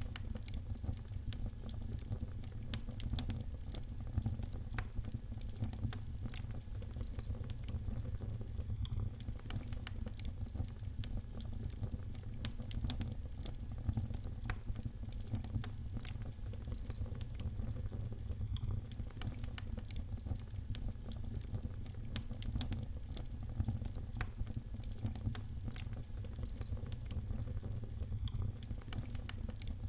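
Wood fire crackling in a fireplace: frequent small pops and snaps, scattered irregularly, over a steady low rumble of the flames.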